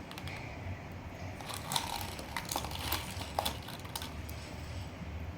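Slime being pulled and worked by hand, giving small scattered crackles and clicks, thickest from about a second and a half in to about four seconds, over a low steady hum.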